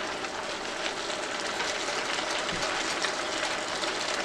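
Noodles and beef sizzling in a hot pan of sauce, a steady frying hiss with fine crackles.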